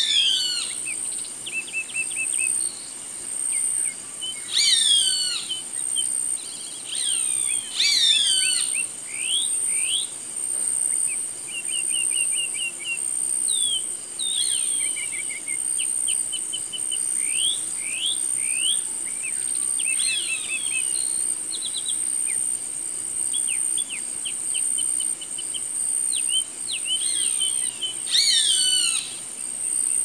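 Roadside hawk giving a harsh, falling scream four times: at the start, twice more in the first ten seconds, and once near the end. Smaller birds chirp and trill between the screams over a steady, high-pitched insect buzz.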